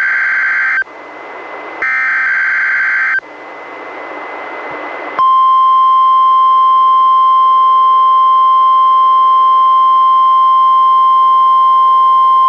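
NOAA Weather Radio test alert from a weather radio: the last two of the three SAME digital header bursts, each a harsh warbling data burst about a second long with radio hiss between. About five seconds in, the steady 1050 Hz warning alarm tone starts and holds.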